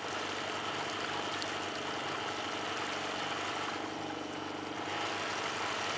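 Outboard motor running steadily at a constant speed, with water noise from the hull.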